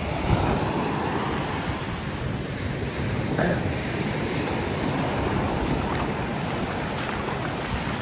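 Ocean surf washing steadily onto the beach, with wind buffeting the microphone.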